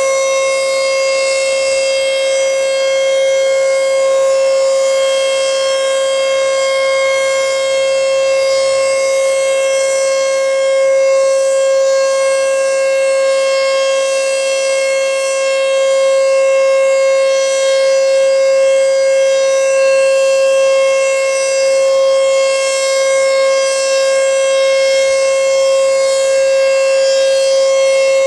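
ASC T-121 rotating tornado siren sounding its steady alert signal: one unbroken tone with overtones, swelling and fading gently in loudness as the siren head turns.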